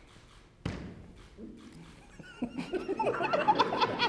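People laughing, breaking out about two and a half seconds in after a quiet start with one soft knock.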